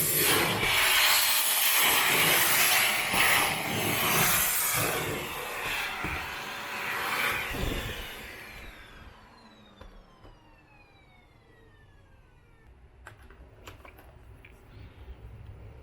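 Panasonic paper-bag canister vacuum cleaner running, its nozzle rubbing along the edges of a room corner. About eight seconds in it is switched off: the motor whine slides down in pitch as it spins down, and a few light clicks follow.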